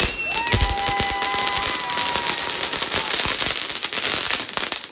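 Ground firework fountain (flowerpot) spraying sparks with a dense, steady hiss and crackle. Over it, a whistle-like tone holds for the first two seconds or so.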